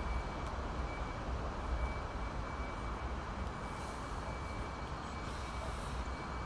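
Steady background rumble of city traffic, with a soft breathy hiss of exhaled cigar smoke about four seconds in and again shortly after.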